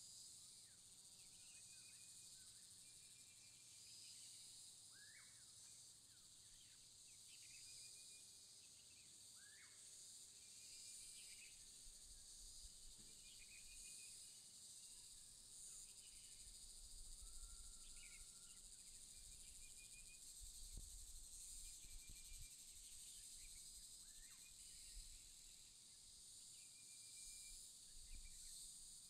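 Faint rural ambience: a steady high drone of insects, with birds calling over it, short upward-swept chirps every few seconds and a few brief trills. A soft low rumble comes and goes through the middle.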